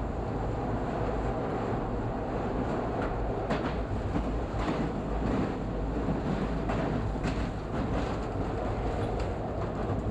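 Subway train running through a tunnel: a steady rumble of wheels on rail with irregular clicks as the wheels pass over rail joints.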